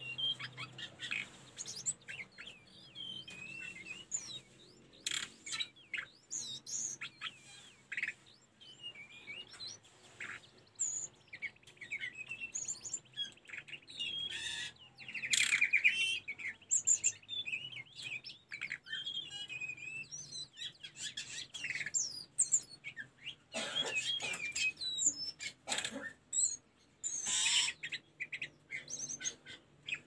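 Hill blue flycatcher (tledekan gunung) singing: a fast, varied run of high whistled and chirped notes with short rising and falling slurs, loudest about halfway through.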